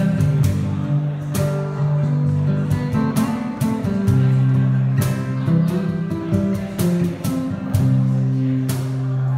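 Acoustic guitar played solo, with strummed chords and picked notes left ringing.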